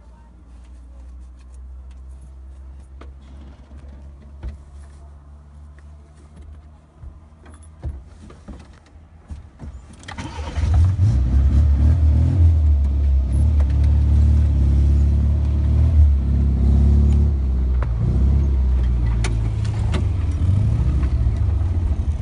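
Car engine running quietly at idle with small clicks and rattles, then about ten seconds in it becomes much louder and stays loud as the car moves off.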